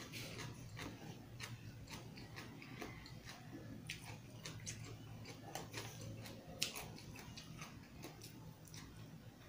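Close-miked chewing of rice and fried chicken, with many small irregular wet mouth clicks and smacks, one sharper click about two-thirds of the way in, over a steady low hum.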